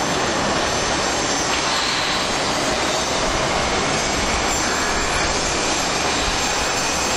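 Steady, loud rushing noise of running machinery, with no clear rhythm or pitch.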